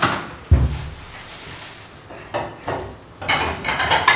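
Dishes and cutlery clattering and clinking, with a loud dull thump about half a second in and a quick run of rattling clicks near the end.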